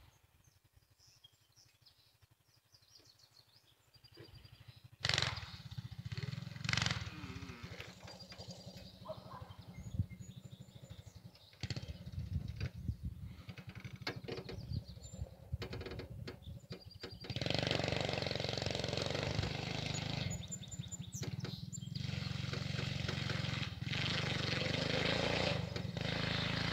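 Mini bike's small engine running at a distance. It is faint with scattered knocks and rustles near the microphone for the first half, then grows much louder and steadier about two-thirds of the way through as the bike comes closer.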